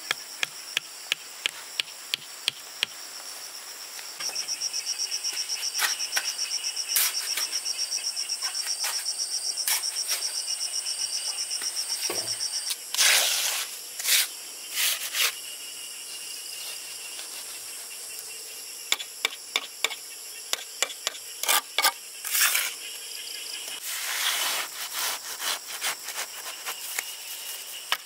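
Insects shrilling steadily on high tones, with a fast pulsing buzz for several seconds near the start. Over it come runs of sharp knocks in quick succession and a few short rasping noises.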